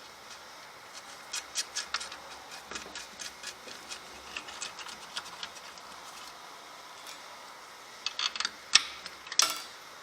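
Small metal clicks and taps of M6 bolts and nuts being handled and threaded by hand into the base of an angle grinder stand. The clicks are scattered and irregular, with a louder cluster near the end.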